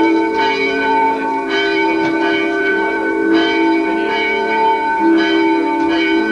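Bell-like ringing tones, many notes sounding together as a sustained chord that shifts every second or two.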